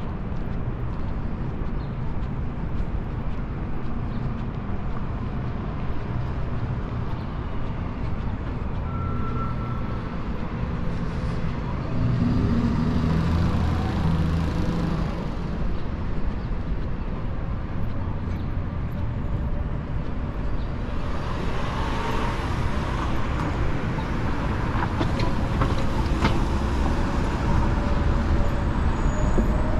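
City street traffic: a steady rumble of engines and tyres, with a vehicle passing close about halfway through and more passing louder in the last third.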